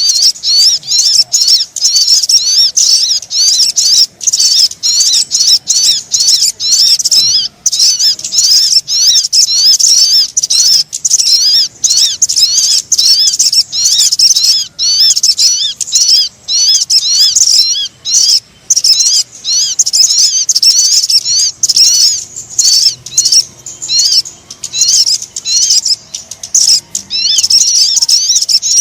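Lure recording of sogon bird calls: a continuous, rapid stream of high, sharp chirps and trills with only short breaks.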